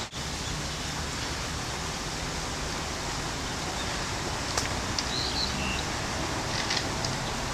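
Steady outdoor background noise, an even hiss with a low rumble, with a couple of faint short high chirps about five seconds in.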